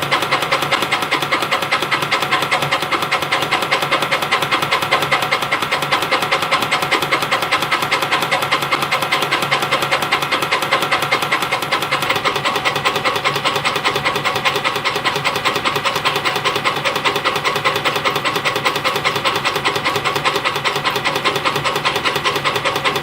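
CNC compression spring coiling machine running, feeding 0.4 mm wire and coiling it into conical compression springs, with a fast, even mechanical rhythm and a steady hiss.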